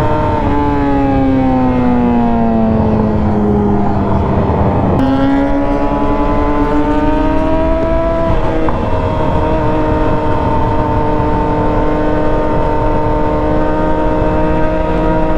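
Yamaha R6's inline-four engine running under the rider, revs falling off the throttle for about five seconds, then jumping up suddenly, rising a little and settling to a steady cruise.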